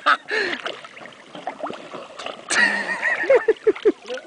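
River water splashing and gurgling against a swamped, capsized canoe right at the microphone, with a run of quick gurgles near the end.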